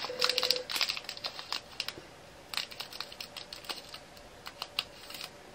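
Diamond-painting drills clicking against a plastic funnel tray and small storage pots as they are poured and pushed about: a patter of quick little clicks in three short spells.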